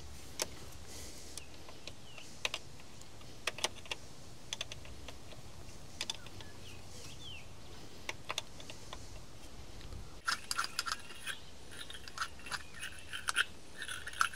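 Light metallic clicks and clinks of hand tools on battery terminals, a few separate ones at first, then a busier run of rattling and clicking for the last few seconds.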